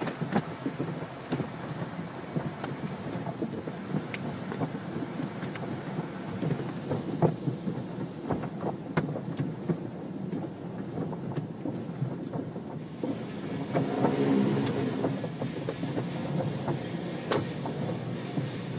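Automatic car wash: a steady rush of water spraying on a car's body, with many scattered spatters and knocks. A louder machine hum comes in about two-thirds of the way through.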